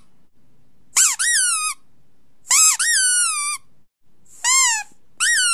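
Three high-pitched squeaks or whines, each rising then falling in pitch and lasting under a second, repeated about every one and a half seconds, with a fourth starting near the end and held longer.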